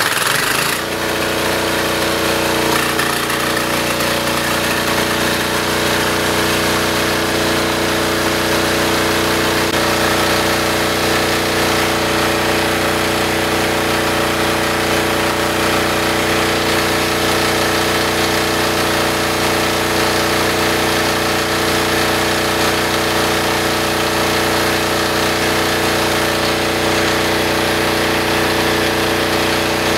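Military diesel generator engine running steadily and evenly right after starting, with its spark arrestor removed from the exhaust; it runs without the bogging and crackling that the arrestor's back pressure caused.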